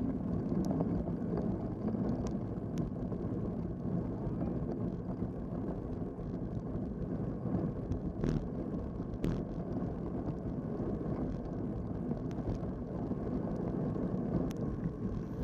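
Steady wind rushing over the microphone of a bike-mounted camera, mixed with the tyre noise of a road bike rolling on wet asphalt. A few sharp clicks stand out here and there.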